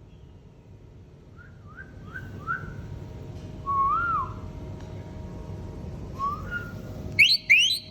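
Indian ringneck parakeet whistling: four short rising whistles in quick succession, then a longer whistle that rises and falls. A single rising note follows, and two loud, sharp rising calls come near the end.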